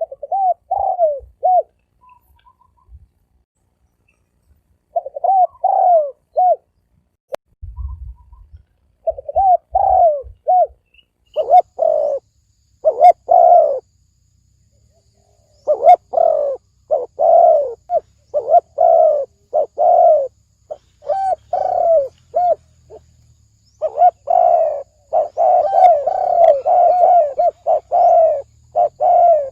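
Spotted dove cooing in a deep, resonant 'ồm vang' voice: phrases of short, rounded coo notes with pauses between them. The phrases come faster and almost unbroken in the last few seconds.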